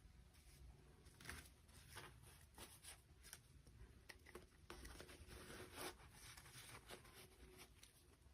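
Faint handling noises: scattered light clicks and short rustles, like small objects or packaging being handled.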